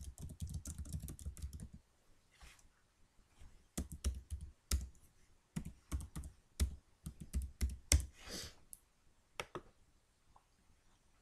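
Typing on a computer keyboard: several short runs of quick keystrokes with pauses between them.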